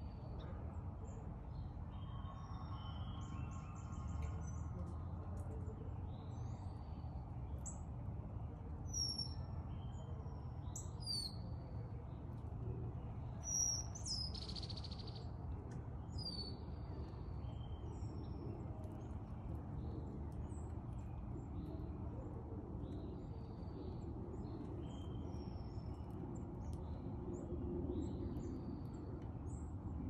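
Backyard birds chirping and calling: many short chirps and whistles throughout, with one louder sweeping call about two-thirds of the way in, over a steady low background rumble.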